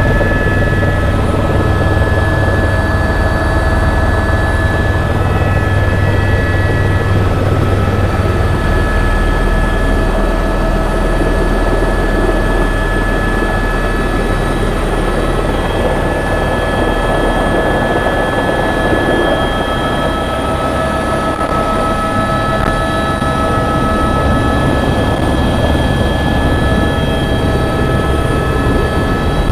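Helicopter turbine and rotor heard from inside the cabin during the descent onto a helipad: a steady high whine over a low rotor drone, the drone dropping deeper about eight seconds in.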